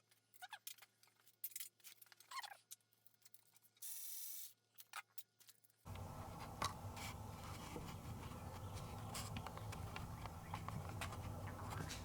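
Faint scattered clicks and taps of hand tools and engine parts being handled, with a couple of short squeaks. About halfway a steady rushing noise starts and carries on, with clicks over it.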